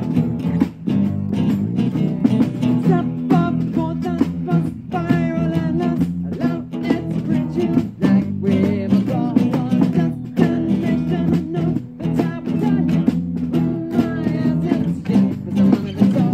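Acoustic band playing live: steadily strummed acoustic guitars, with a wavering melody line carried over the chords.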